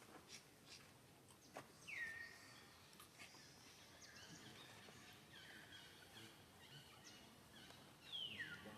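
Faint high-pitched animal calls, each sliding down in pitch. One comes about two seconds in, fainter ones follow in the middle, and another comes near the end, over low background noise.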